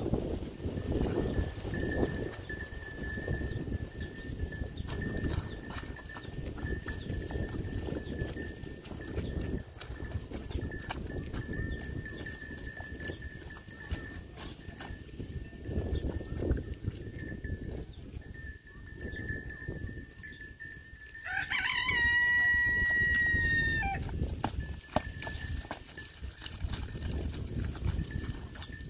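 A rooster crows once, about three-quarters of the way in: a call that rises at the start, then holds for a couple of seconds and dips at the end. Under it runs a low rumbling noise and a faint steady high ringing tone.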